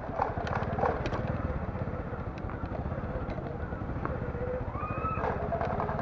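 Motorcycle engine running at low speed, a steady low rhythmic chug with small clicks and rattles over it.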